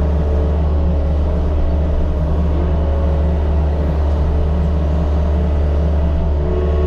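Mini excavator engine running steadily with a constant low drone.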